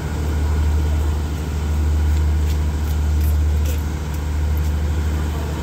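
Diesel express train standing at the platform with its engines idling: a steady, loud low drone.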